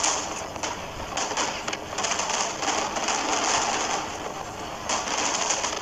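Fireworks crackling overhead, a dense hissing crackle like rain that swells and fades in waves.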